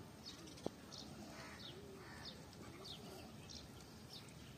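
Faint birds calling: one bird repeats short, high, falling chirps every half second or so, and a lower, arching call comes twice near the middle. A single light click sounds less than a second in.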